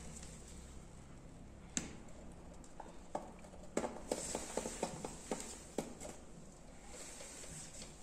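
Faint room noise with scattered light clicks and taps: one sharp click about two seconds in, then a quick irregular run of them from about three to six seconds in.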